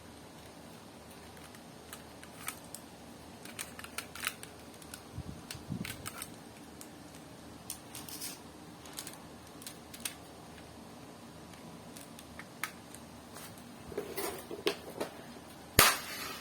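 Lego pieces being handled and fitted together: scattered light plastic clicks and rustles, with one louder sharp clack near the end.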